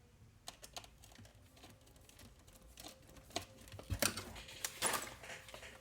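Light clicks, taps and rustles of small plastic and metal parts and tools being handled while reassembling an RC car, growing busier in the second half, with a couple of sharper clicks about four and five seconds in.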